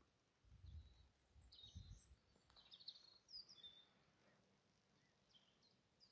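Faint outdoor quiet with scattered short chirps of small songbirds. There are a few brief low rumbles in the first two seconds.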